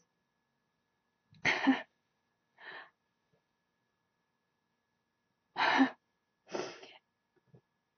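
A woman laughing softly under her breath: a few short, breathy puffs without voice, about a second and a half in, once more faintly, then twice near six seconds, with silence between.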